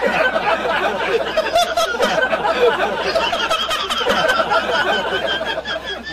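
A man laughing hard and without letup, with other voices laughing and chattering around him.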